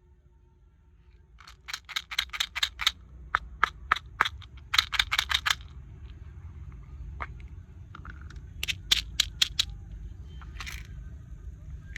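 Quick runs of sharp clicks or taps from small hard objects, about six a second, coming in four bursts with short gaps, then a brief rustle near the end.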